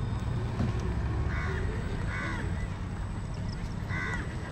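Three short, harsh, duck-like calls, the first two close together and the third near the end, over a steady low rumble.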